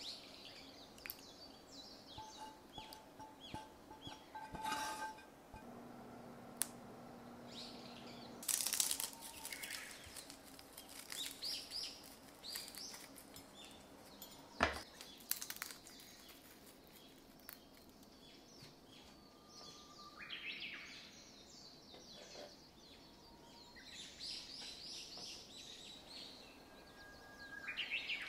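Oil sauce dripping onto plated spaghetti, then the light, irregular crackling and crunching of crisp fried garlic chips crushed between the fingers and sprinkled over the pasta, with a run of sharp crunches about nine to thirteen seconds in.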